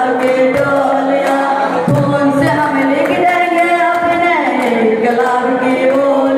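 A young man singing solo into a handheld microphone, holding long notes that slide slowly up and down in pitch.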